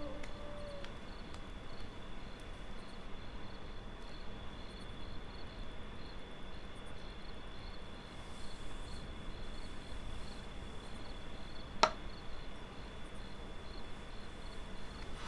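Quiet room tone: a faint steady high-pitched whine with a faint regular ticking just above it and a low hum beneath. A single sharp click sounds about twelve seconds in.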